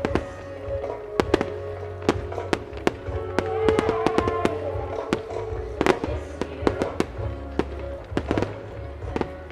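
A starmine rapid-fire fireworks display: shells bursting in sharp reports, several a second at irregular spacing, set to music playing over loudspeakers with a heavy bass.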